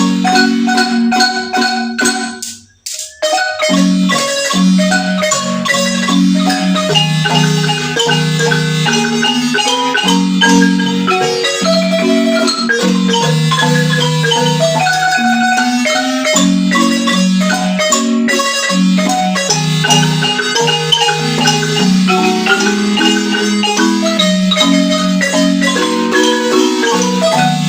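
Marimba playing a melody of quick struck notes over a lower line of sustained notes, with a brief break about three seconds in.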